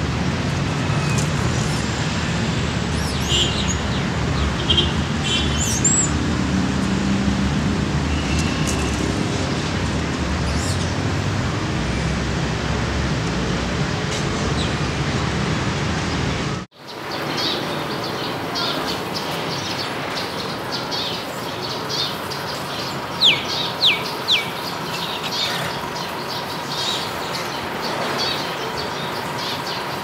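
Outdoor ambience: a steady low rumble with occasional short bird chirps. About halfway through it cuts abruptly to a quieter background with more chirps, including three quick falling chirps a little later.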